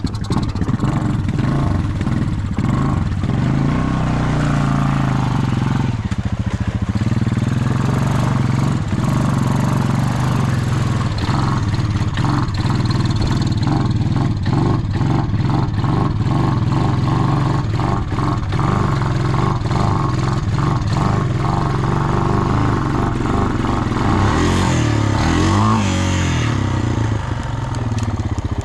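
Honda Rancher 350 ATV's single-cylinder four-stroke engine running steadily under throttle as the quad floats through deep floodwater. Its pitch rises and falls with a few revs near the end.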